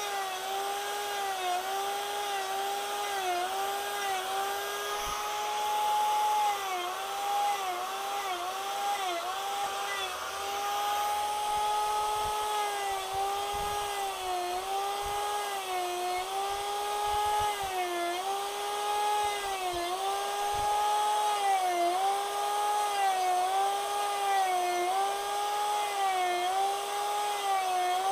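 Handheld rotary carving tool spinning a cheap gouge disc and cutting into wood: a steady motor whine whose pitch sags each time the disc bites and recovers between cuts, about every one to two seconds.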